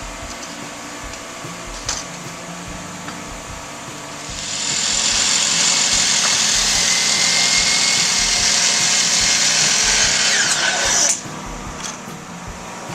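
A handheld power tool runs at full speed for about seven seconds, starting about four seconds in, then stops suddenly and winds down briefly as it is released.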